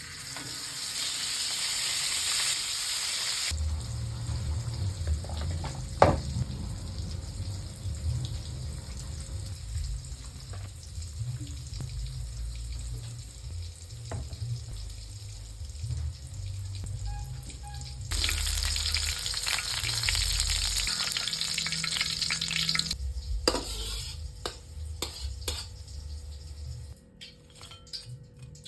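Food frying in a hot pan, sizzling loudly for the first few seconds and again for several seconds from about two-thirds in, with low handling noise, a sharp knock and light clatter in between.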